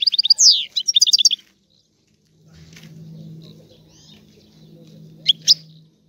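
European goldfinch singing its caller song ('stragalino'): a quick twittering run of high notes and a fast trill for about a second and a half, a short pause, then two sharp high notes near the end. A low steady hum sits under the second half.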